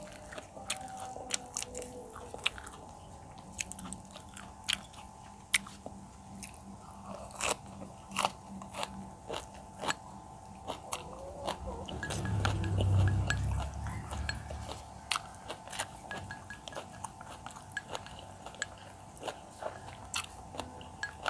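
Close lapel-mic sound of a person chewing and crunching a mouthful of rice, raw herbs and braised fish, with many small sharp clicks. There is faint music in the background, and a low rumble swells for about two seconds midway.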